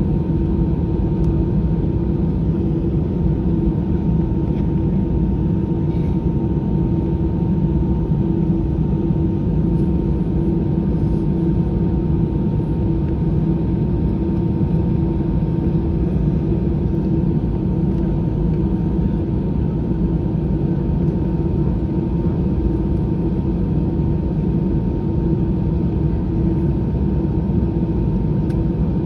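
Steady cabin noise inside an Airbus A320-214 airliner: a constant loud low rumble with a steady hum running through it.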